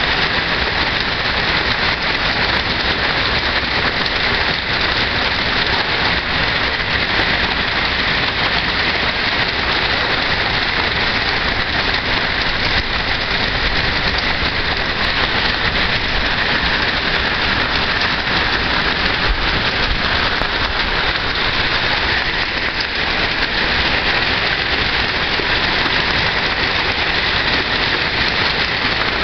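Heavy rain falling in a steady downpour: a dense, even hiss with no let-up.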